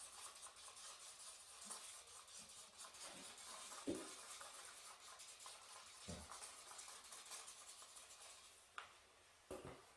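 Faint scraping of water-based paint being stirred in a small cup, with a few light knocks.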